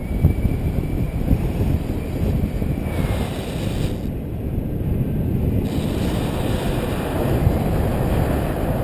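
Airflow of a paraglider in flight buffeting the camera microphone: a steady low rush that swells and eases in gusts.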